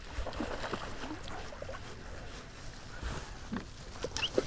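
Low, steady noise from wind and water around a small fishing boat, with a few faint clicks and knocks.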